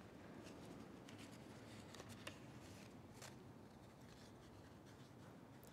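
Near silence: the quiet room tone of a church, with a few faint clicks or rustles about two to three seconds in.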